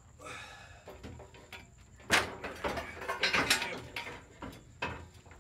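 Heavy steel Rough Country bumper with its winch being shoved and levered onto the pickup's frame rails: irregular metal knocks, clanks and scraping. The loudest knock comes about two seconds in, followed by a second of clatter and a few more knocks.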